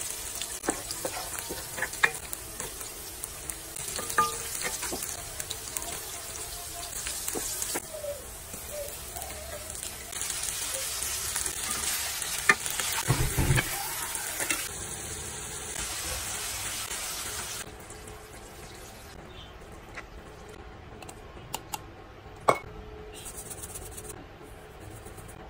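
Hot oil sizzling in a nonstick wok as chopped aromatics and then raw chicken pieces fry, with stirring and a few utensil clicks and a low thud midway. About eighteen seconds in the sizzle stops, leaving a quieter pan with a few sharp taps once the chicken is covered in liquid.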